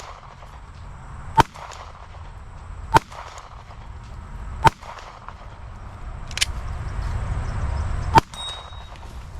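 Shots from a Glock 17 9mm pistol: four evenly spaced about a second and a half apart, a fainter snap, then a fifth shot near the end. The last shot is followed by a brief high ringing tone.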